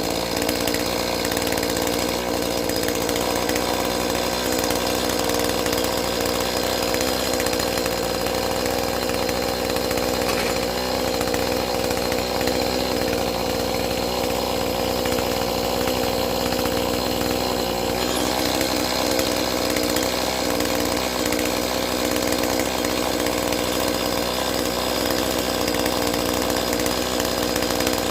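Chainsaw engine running steadily at a constant speed.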